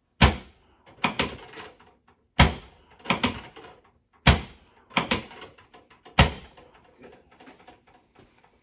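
Chiropractic drop table sections dropping under the adjuster's thrusts: four loud, sharp thuds about two seconds apart, each followed by a pair of lighter knocks, with smaller knocks dying away near the end.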